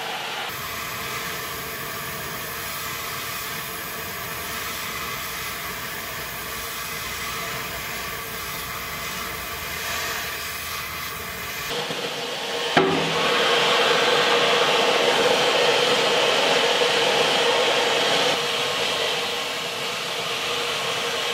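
Gas torch flame hissing steadily as it heats a truck's front coil spring to collapse the coils and lower the front end. A sharp click comes about 13 seconds in, and the hiss is louder after it.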